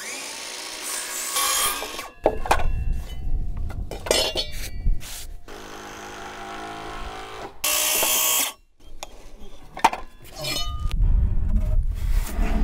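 Power tools working timber deck framing in several short bursts, one with a steady motor whine, and a loud burst of noise about eight seconds in.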